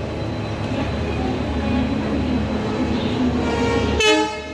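Steady low rumble of an approaching passenger train. About four seconds in comes a short, loud train horn blast that cuts off abruptly.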